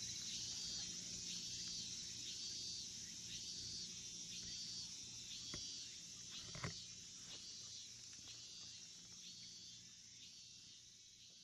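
Outdoor insect chorus: a steady high buzz with a repeating pulsing call, about one and a half notes a second, fading out toward the end. Two faint clicks come about halfway through.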